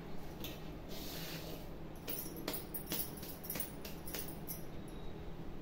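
Hands mixing chopped raw mango pieces and spice mix in a large metal vessel for pickle: soft rustling of the pieces, with a run of quick light clicks and clatters from about two seconds in.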